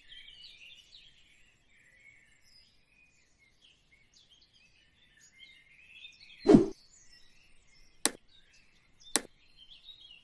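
Birds chirping steadily in the background. About six and a half seconds in there is one loud thud, followed by two sharp clicks about a second apart.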